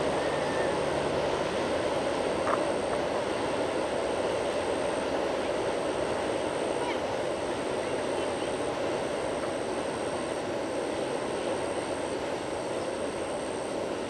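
Freight train of tank wagons rolling across a bridge: a steady, dense rumble that slowly fades as it draws away.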